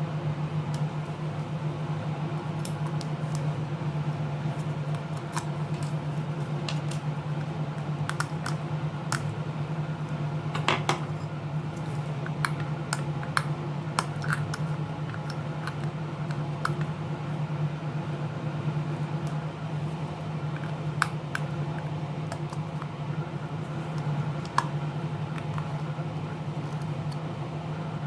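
Small metal tools and plastic tablet parts clicking and tapping now and then, over a steady low hum.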